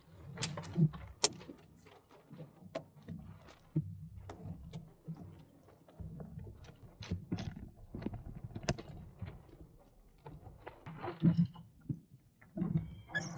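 Irregular clicks, rattles and knocks from a small Sunfish sailboat's fittings and rigging as the boat is sailed and turned through a tack, over low uneven sloshing of water against the hull.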